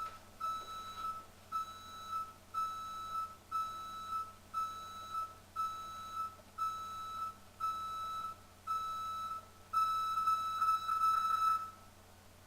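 Alarm system's exit-delay countdown: a high electronic beep about once a second, quickening into a rapid run near the end and then stopping as the alarm arms.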